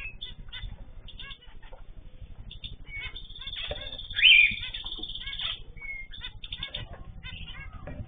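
A mixed aviary of cockatiels, zebra finches and canaries calling over one another: many short repeated chirps throughout, with one loud call about four seconds in.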